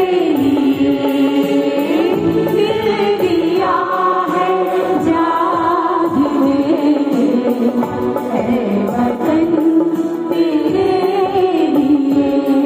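A mixed choir of men and women singing a song together, accompanied by a harmonium that holds steady sustained notes under the voices.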